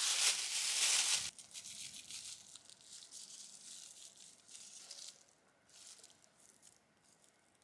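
Thin plastic food bag crinkling and rustling as it is twisted and knotted into portions: loudest in the first second, then softer rustles that die away about six seconds in.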